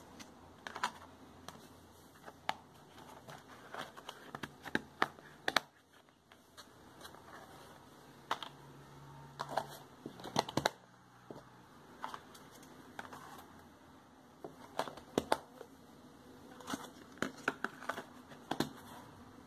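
Plastic lids being pressed and snapped onto plastic food tubs, with irregular light clicks and knocks of plastic on plastic.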